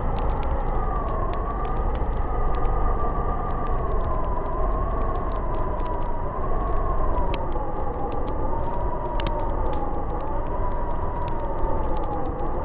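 Snowstorm wind howling: a wavering whistle that slowly drifts up and down in pitch over a deep low rumble, with scattered faint clicks and crackles throughout.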